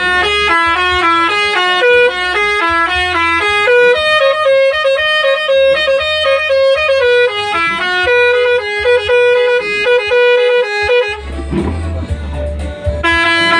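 Bus telolet horn, a set of musical air horns, playing a quick tune of stepped notes for about eleven seconds, breaking off briefly and starting again near the end.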